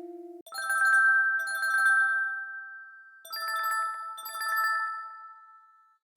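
Amazon Fire Phone alert tone: a bell-like electronic chime with a fluttering tremolo, struck twice, then twice more on a different chord, each strike ringing out and fading away.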